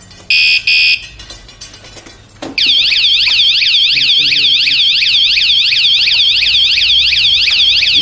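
Two short electronic beeps, then a knock about two and a half seconds in, after which a battery-powered anti-theft siren sounds loudly in a fast, continuous warble of repeating pitch sweeps. The alarm has been set off by someone tampering with the armed scooter.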